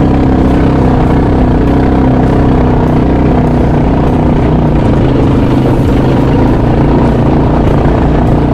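A boat's engine running steadily at a constant speed, with no change in pitch.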